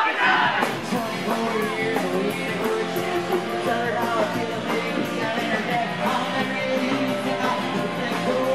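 Live rock band playing a song: guitar strumming over a steady beat.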